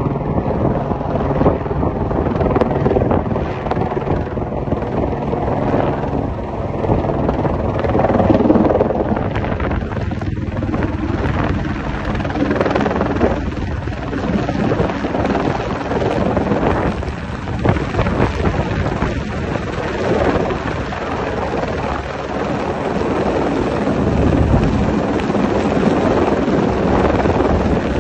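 Helicopter flying overhead, its rotor and turbine running steadily, heavier in the low end near the end as it comes closer.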